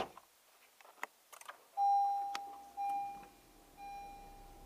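A few light clicks, then a car's interior warning chime dinging three times about a second apart, each ding fading away, the first the loudest.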